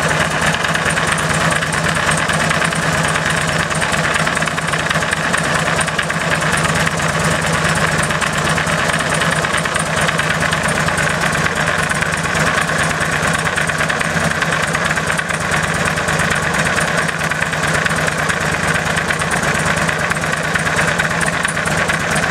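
Harley-Davidson V-twin running steadily, with noise from the primary chain drive heard close at the primary cover. The owner ties the noise to the Baker DD6 kit's larger 28-tooth motor sprocket, longer primary chain and thicker chain adjusting shoe, since it goes away with the stock primary parts back in.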